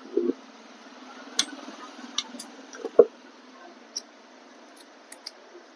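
Small screwdriver clicking and scraping against the tight screws that hold the amplifier ICs to the heat sink, in scattered sharp metallic clicks with a heavier knock about three seconds in.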